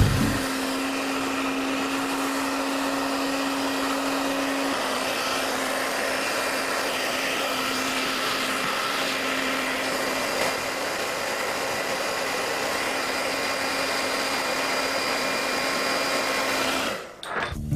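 Hand-held hot-air blower running steadily, warming the clear PVC film so it can be shaped around a table corner. It cuts off near the end.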